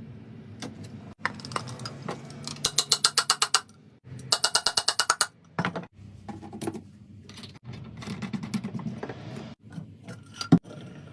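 Ratcheting clicks from a drill driver. There are two quick runs of about nine clicks a second, with quieter scraping and handling noise between them and a sharp knock near the end. The sound breaks off abruptly several times.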